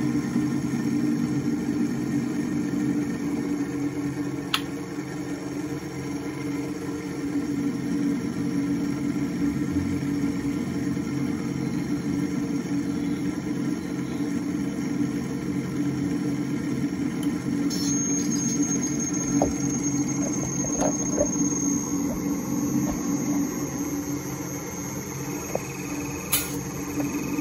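Inverter air-conditioner compressor running on the test bench under the PCB's drive, a steady hum. A sharp click comes about four and a half seconds in and another near the end, and a faint high whine joins about two-thirds of the way through.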